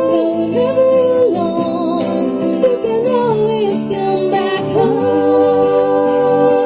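Female vocal group singing wordless, hummed harmonies over a plucked guitar, the voices moving through short melodic phrases and then settling into a long held closing chord about five seconds in.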